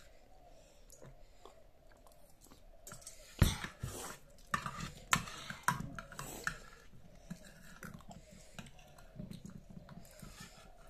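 Children chewing and eating noodles, with a spoon and fork clicking against a ceramic plate. A single sharp knock about three and a half seconds in is the loudest sound, followed by a run of short clinks.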